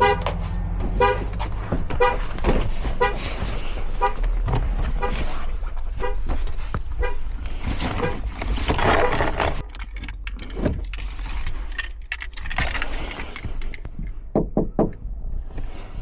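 2015 Chevy Equinox's anti-theft alarm honking the horn in a steady rhythm, about once a second for roughly eight honks, then stopping: the alarm set off by the door being opened while the car was locked. A few sharp clicks and knocks follow near the end.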